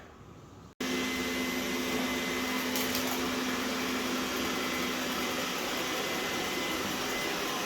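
Roborock S7 robot vacuum running, a steady whirring suction fan with an even hum and a faint high whine underneath. It cuts in suddenly just under a second in and holds steady.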